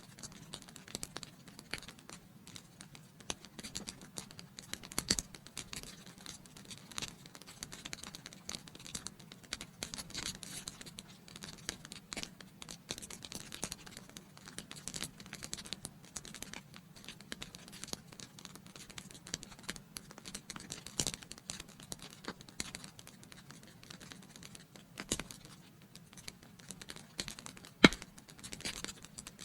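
Wood fire in a fireplace crackling, with a steady hiss and irregular sharp snaps and pops; one louder pop near the end.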